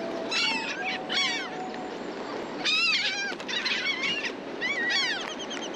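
A flock of laughing gulls calling again and again: many short, high calls that fall in pitch, some overlapping, over a steady wash of surf and wind.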